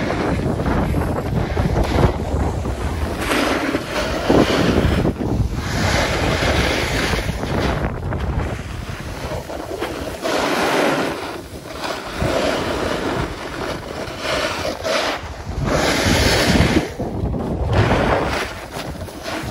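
Wind rushing over the microphone while skiing downhill, with skis scraping and hissing over hard, chopped snow in repeated swells every second or two.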